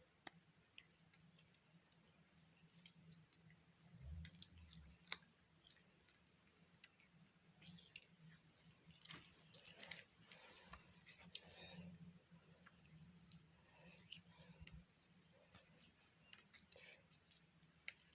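Oily hands being rubbed together with coconut oil, giving faint, intermittent soft wet squishes and clicks.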